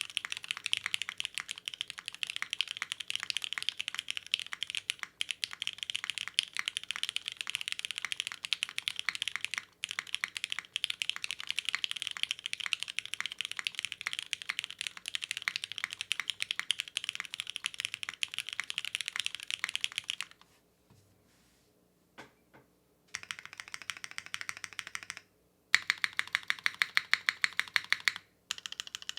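Mechanical keyboard with lubed MX Black linear switches, a carbon fiber plate and CRP R4 keycaps, typed on fast and continuously. About two-thirds of the way in the typing stops for a couple of seconds except for two lone keystrokes, then resumes, ending in a run of evenly spaced, louder keystrokes.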